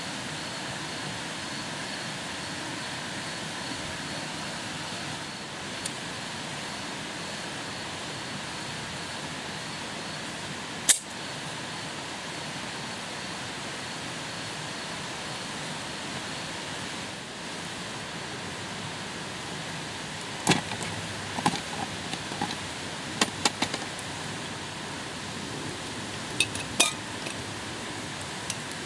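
Metal cookware clinking and knocking: a single sharp snap about eleven seconds in, then a string of short metallic clinks and knocks in the last third, over a steady outdoor hiss.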